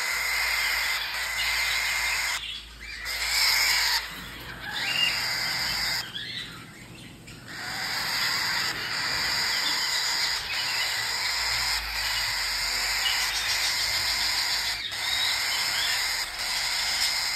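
Baby cockatiel chicks chirping and calling continuously, with two brief lulls about two and a half and six seconds in.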